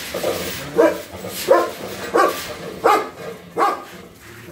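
A dog barking five times at an even pace, about one bark every three-quarters of a second.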